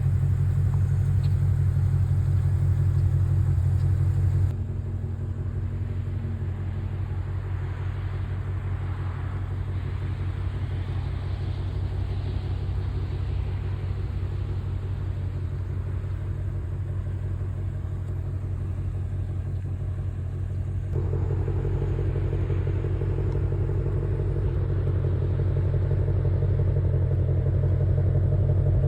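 Ford Mustang V8 idling with a steady, deep rumble. It gets quieter a few seconds in and louder again about three-quarters of the way through.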